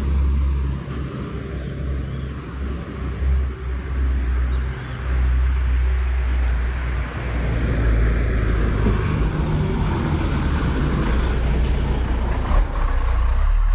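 Street traffic: a motor vehicle engine running with a steady low hum, growing louder over the second half.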